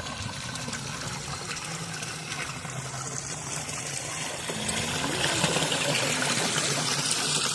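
River water rushing and splashing in a steady wash of noise, growing louder about five seconds in.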